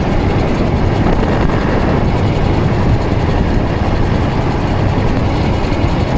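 Steady wind rush buffeting the microphone as an electric bike rides at speed, with road noise underneath.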